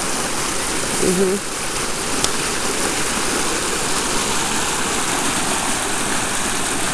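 Steady rushing of flowing river water, with a single sharp click a little after two seconds.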